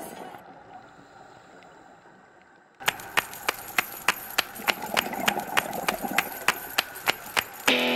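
Background music: one song fading out, a short quiet gap, then a new track starting suddenly about three seconds in with a crisp, even percussion beat of about three strikes a second.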